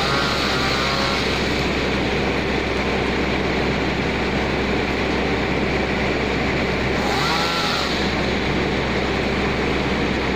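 Engine of a motorised fruit-cutting machine running steadily at one constant speed.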